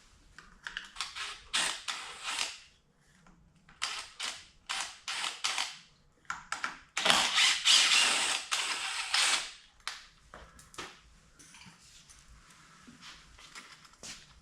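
Hands and tools working the plastic left-hand handlebar switch cluster loose: irregular runs of clicks, rattles and scraping, with the longest, densest stretch in the middle.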